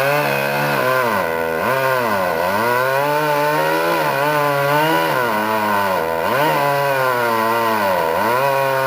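Chainsaw running under load while cutting through a large tree branch, its engine pitch repeatedly sagging as the chain bites into the wood and picking back up.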